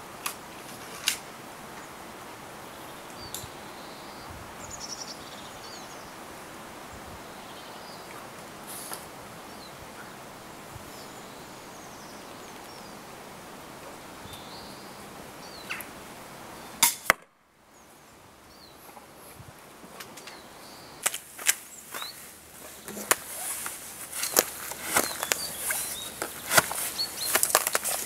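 MX-80 pistol crossbow shooting: a few faint sharp snaps, then two loud cracks about halfway through. After a brief drop to near silence come irregular clicks and footsteps on dry ground near the end.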